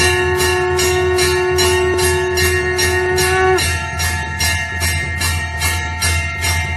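Temple bells ringing: a bell struck in a steady quick rhythm of about three strokes a second over long overlapping ringing tones. The lowest ringing tone stops suddenly about three and a half seconds in.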